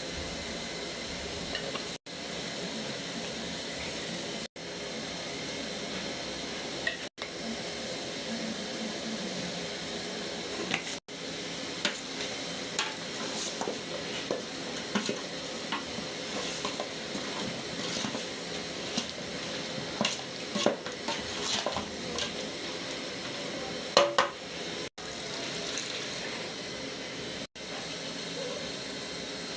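Food sizzling in a cooking pot with a steady hiss, while a spoon stirs and clinks against the pot through the middle stretch, with the loudest knock near the end. The sound drops out briefly several times.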